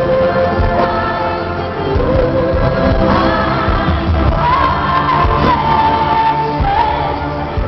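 Live band music with a singer holding long notes over a steady beat, recorded from the audience.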